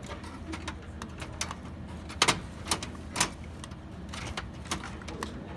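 Clicks and knocks of metal and plastic parts being handled and fitted inside an open Dell desktop computer case, with three louder knocks between about two and three seconds in. A steady low hum runs underneath.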